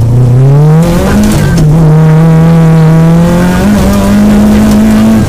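Peugeot 205 GTI rally car's four-cylinder engine, loud from inside the cabin, pulling hard: its pitch climbs over the first second, dips briefly, holds steady, then steps up again near the end.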